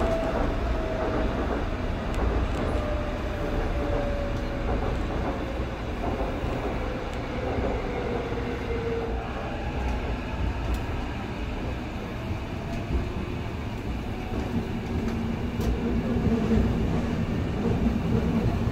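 Seoul Metro 2000-series electric subway train running, heard from inside the carriage: a steady rumble of wheels on rail under a motor whine that falls in pitch over the first nine seconds as the train slows. A lower hum comes in near the end.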